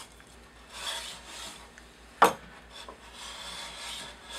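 Lie-Nielsen medium shoulder plane shaving the shoulder of a rabbet in wood, two rasping strokes: a short one about a second in and a longer one near the end. A single sharp knock about two seconds in, the loudest sound.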